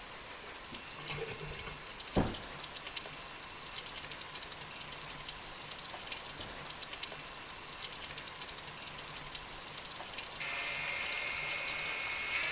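Water trickling and pattering. About ten seconds in, the Cuttronix CM-10S3 core drill's single-phase motor starts with a steady high whine as the 200 mm core bit begins to spin.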